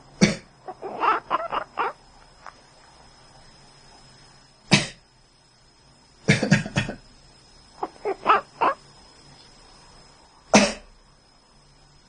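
A person coughing: sharp single coughs a few seconds apart, one a quick double or triple. Twice, right after a cough, comes a quick run of four or five short pitched calls.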